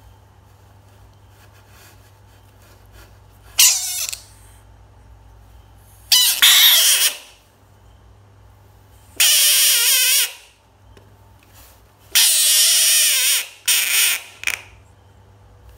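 Bullfrog screaming five times, each a loud, wavering cry lasting about half a second to over a second, the last two coming close together near the end.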